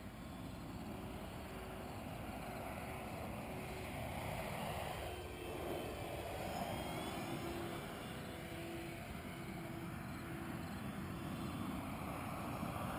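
A small Depron foam RC model airplane flying over, its motor and propeller a faint hum that grows louder about halfway through as the plane comes nearer, over a steady rushing noise.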